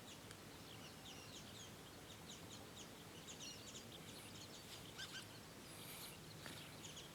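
Faint background birdsong: many short, quick high chirps overlapping throughout.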